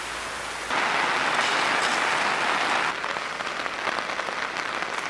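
Heavy rain falling on a tarp shelter, with runoff streaming off the tarp's edge: a steady hiss that gets louder about a second in and eases a little near three seconds.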